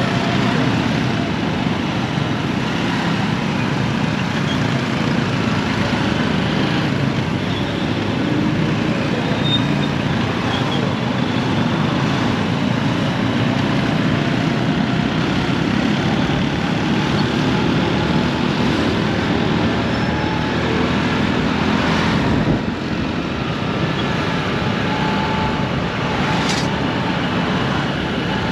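Steady road traffic: motor vehicles running and passing, with engine and tyre noise and a couple of brief sharper sounds late on.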